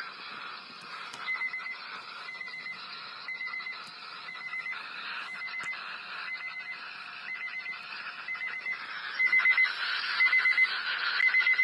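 Short high-pitched electronic beeps repeating about once a second, eleven in all, over a steady background hiss, with a faint steady lower tone underneath that stops about three-quarters of the way through.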